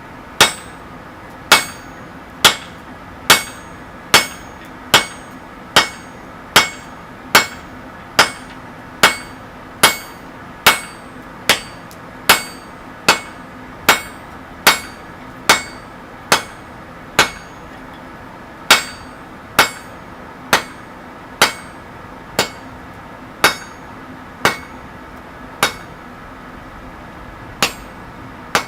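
Hammer blows on hot mild steel bar over an anvil, a steady rhythm of about one strike every 0.8 seconds with a bright ringing after each, drawing out heavy stock; the strikes pause briefly twice. A steady hum runs underneath.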